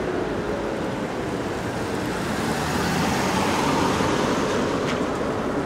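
Street traffic: cars passing on a wet road, a steady hiss of tyres on wet asphalt that swells a little about three to four seconds in.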